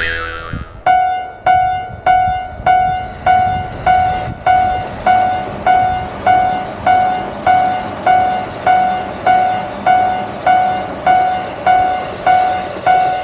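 Japanese railroad crossing warning bell ringing: a steady, evenly repeated ding, a bit under two strikes a second, each with a sharp onset and a quick fade. A short falling sweep comes just before the ringing starts.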